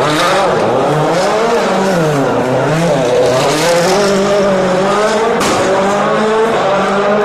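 Rally car engine running hard, its revs rising and falling several times and then holding steadier, with a single sharp bang about five seconds in.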